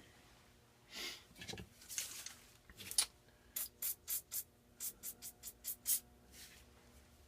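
Aerosol can of penetrating oil sprayed in short squirts: a few scattered hisses, then a quick run of about nine short bursts near the middle.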